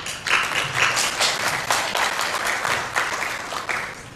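Audience applauding a speaker's introduction. The clapping is loud and dense, then thins and dies away near the end.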